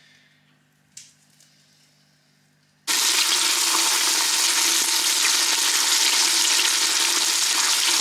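A faint click, then about three seconds in a pot of soup vegetables on a gas cooker suddenly starts sizzling loudly and steadily as they hit hot fat.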